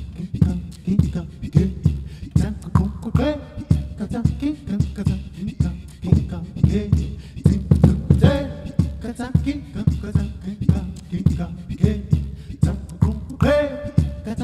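A man singing and making rhythmic vocal percussion into a microphone, over a steady pulse of low strokes, about two a second, from his cello. Short held sung phrases come three times, about 3, 8 and 13 seconds in.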